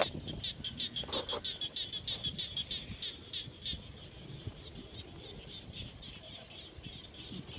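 An animal calling outdoors: rapid high chirps repeated about five times a second, loudest in the first few seconds and fading after about four seconds, over faint low background noise.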